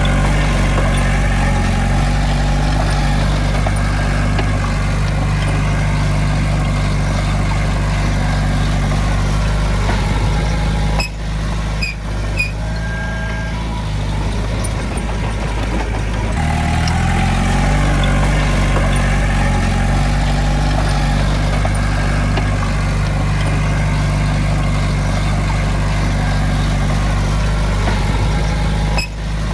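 Heavy diesel engine running steadily, with a short break in the sound about eleven seconds in and again near the end.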